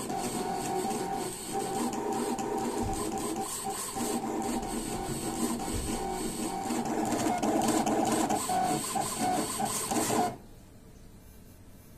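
Redsail RS1360C cutting plotter's stepper motors running as the carriage and rollers drive a pen across paper to write text, a machine whine with several held tones that change as the moves change and turn choppy with short moves near the end. It stops suddenly about ten seconds in, the drawing job finished.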